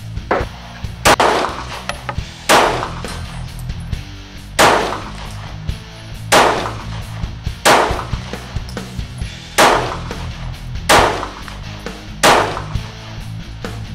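Glock 26 9mm subcompact pistol fired eight times in slow aimed fire, a shot every one to two seconds, at steel pig targets 100 yards away.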